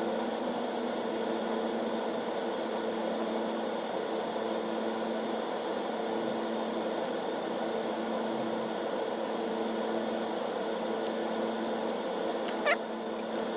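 Steady electrical hum with a hiss over it, broken by two sharp clicks near the end.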